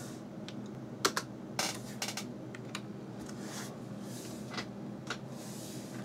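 Computer keyboard keys pressed one by one, irregular separate clicks, to get from the boot screen into the BIOS setup. A faint steady hum runs underneath.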